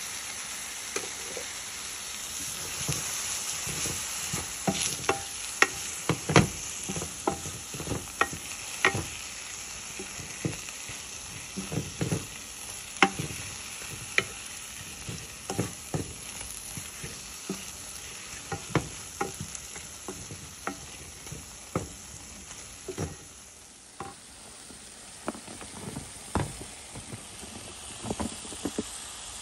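Onions, peppers and spices frying with a steady sizzle in a pot while a wooden spoon stirs them, knocking and scraping against the pot many times. The sizzle dips briefly about three-quarters of the way through, then goes on with more knocks.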